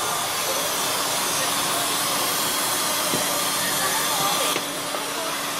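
Steady hiss and low hum inside a coach bus at the driver's position, its engine and air system running. The hiss drops off suddenly near the end.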